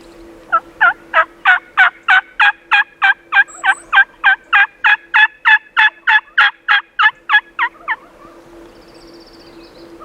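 A long, even series of about two dozen loud turkey yelps, roughly three a second, stopping abruptly about 8 seconds in, with a faint steady hum underneath.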